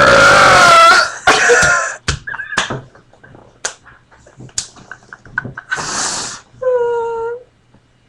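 Burps and coughs in a burping contest: a very loud, rasping belch with a falling pitch in the first second, then short coughs and throat noises, and a shorter pitched belch near the end.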